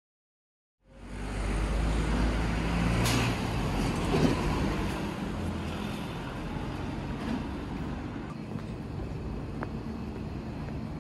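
Silence for about the first second, then city road traffic running steadily, with a heavy low rumble over the first few seconds and a sharp click about three seconds in.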